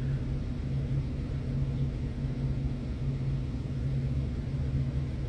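A steady low hum or rumble with no clear events, swelling and easing slightly.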